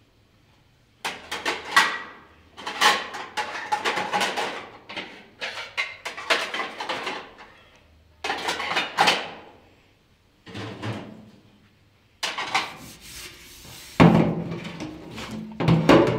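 Plates and dishes clattering against each other and a metal wire dish rack as they are handled, in several bursts of knocks and scrapes with short pauses between. The clatter is loudest near the end.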